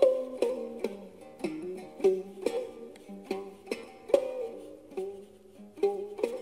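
Khse diev, the Khmer single-string stick zither with a gourd resonator, playing a melody of plucked notes at about two or three a second, several of them sliding in pitch.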